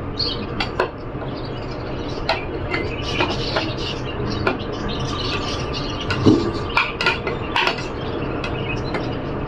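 Irregular light clicks and knocks of a plastic spoon tapping and scraping on a plate as pieces of ripe jackfruit are slid off into a glass jar.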